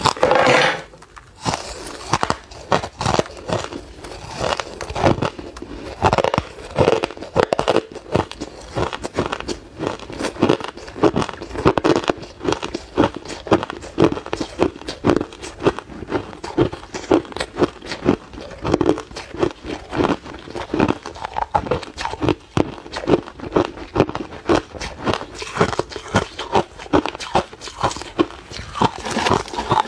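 Ice being bitten and chewed: a loud crunching bite at the start, then steady rapid crunching at about three crunches a second.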